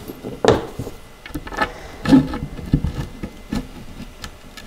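Several light knocks and rubs of a melamine-covered particleboard panel being set upright on the bottom board and shifted into place, the loudest knock about two seconds in.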